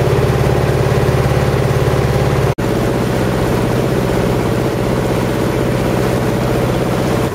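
Motorboat engine running steadily, heard from on board, with water churning in the wake. The sound breaks off for an instant about two and a half seconds in, then carries on.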